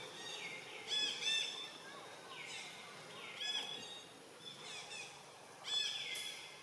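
Repeated short, high-pitched animal calls, several of them sweeping downward in pitch, about five calls in all, the loudest about a second in and near the end.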